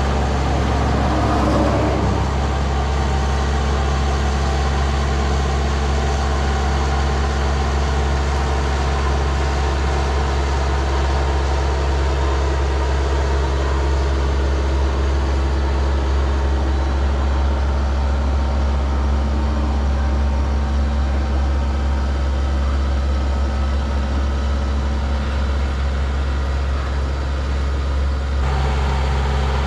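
An engine idling steadily with a constant low drone; its tone shifts slightly near the end.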